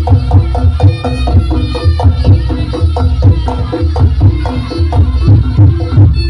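Reog Ponorogo gamelan music playing loudly: drum strokes and pitched gong-chime notes in a fast, even rhythm.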